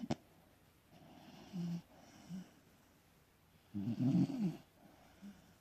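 Beagle snoring in its sleep: a few short, soft snores, then one louder, longer snore with a wavering pitch about four seconds in. A sharp click right at the start.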